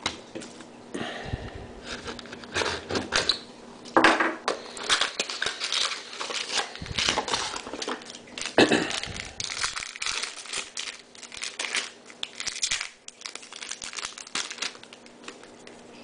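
Foil trading-card pack wrappers crinkling and tearing as packs are handled and ripped open, an irregular run of crackles with a couple of louder sharp rips.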